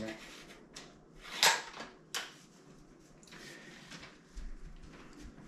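Handling noise from an airsoft rifle: a few scattered clicks and knocks, the sharpest about a second and a half in.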